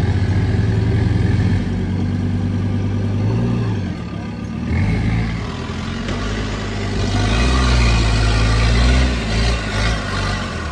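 A vehicle engine running, its pitch shifting up and down, getting louder for a couple of seconds about seven seconds in.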